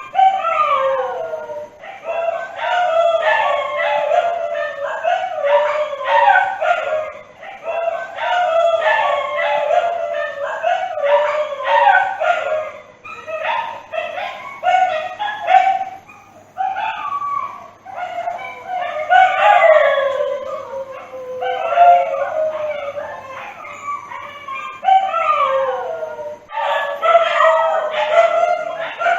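Dogs howling mournfully, several long calls overlapping, many sliding down in pitch, with brief lulls between bouts.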